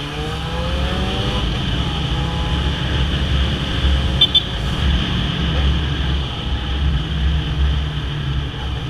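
Yamaha XJ6's inline-four engine and exhaust accelerating, its pitch rising over the first second or so, then running steadily under way. A brief high beep about four seconds in.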